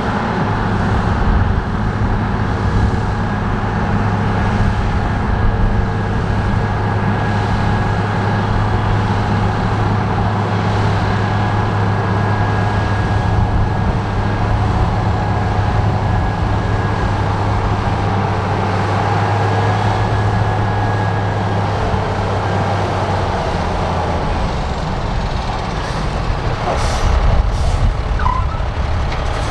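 Heavy construction machine's diesel engine running steadily, its note dropping about three quarters of the way through, with a few short sharp sounds near the end.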